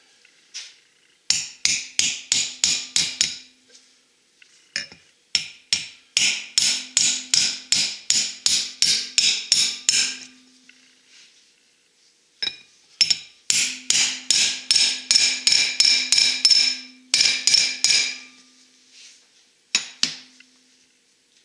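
Hammer tapping a grease seal into a front disc brake rotor's hub. There are three runs of quick blows, about four or five a second, each blow ringing like metal.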